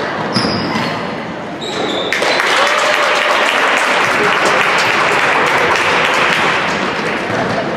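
A gym crowd applauding for about five seconds, starting about two seconds in, after a made basket. Before it come a few short, high sneaker squeaks on the hardwood court.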